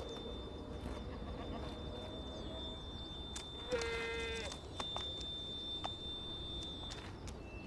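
Alpine ibex bleating once, a short call about halfway through, with scattered light clicks and a thin steady high tone behind it.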